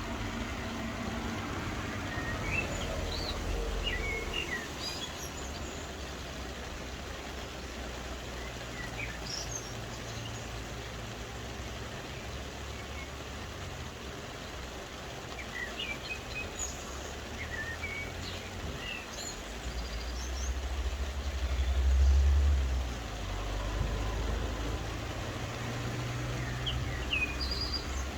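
Steady soft rain hiss with birds chirping here and there. Under it runs a low rumble that swells about two-thirds of the way through, the loudest part.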